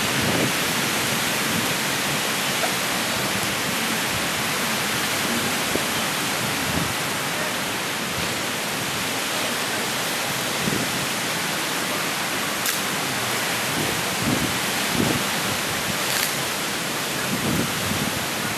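Ocean surf breaking on a beach: a steady, unbroken wash of waves.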